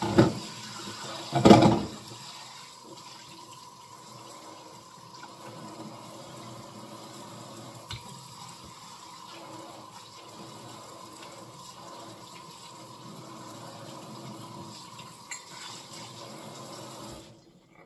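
Kitchen tap running steadily into the sink, shut off abruptly near the end, with two louder knocks about a second and a half apart at the start.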